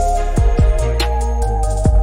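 Background music: an electronic track with a steady kick-drum beat, a bass line and a melody.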